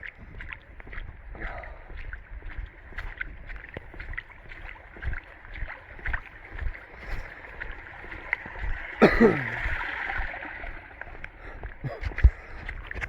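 Torrential rain: a steady hiss of heavy rainfall with many sharp drops tapping close to the microphone and water running and splashing. About nine seconds in, a brief louder sound falls in pitch.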